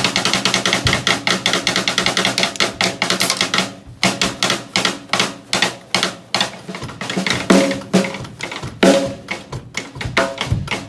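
Snare drum struck with drumsticks in fast, loose rolls for the first few seconds, then breaking into scattered, uneven hits with short gaps. A few of the later strokes are louder and leave a ringing drum tone.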